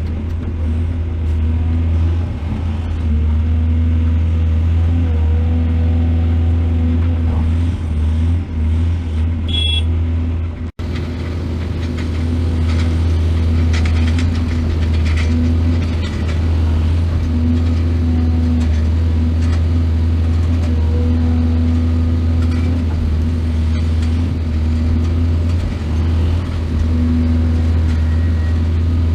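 Heavy excavator diesel engine running steadily with a deep, even hum. The sound cuts out for an instant about eleven seconds in, then carries on.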